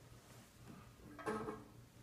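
Gear side cover of a metal lathe's headstock being pulled off: quiet handling with one short clatter of the cover a little over a second in.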